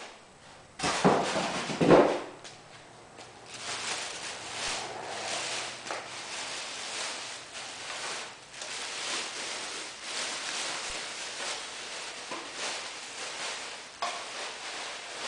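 Unpacking handling noise: two knocks about one and two seconds in, then continuous rustling and small clicks of packaging being handled.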